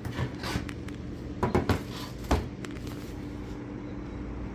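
Scattered sharp clicks and knocks of a screwdriver and small screws being handled while the bottom-case screws come off a MacBook Air, loudest in a short cluster about a second and a half to two seconds in.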